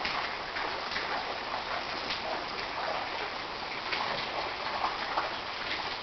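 Steady rush of water, with scattered faint splashes or drops through it.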